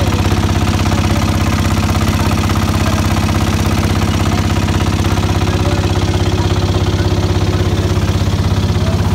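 Boat engine running steadily at constant speed, with a fast, even chugging pulse.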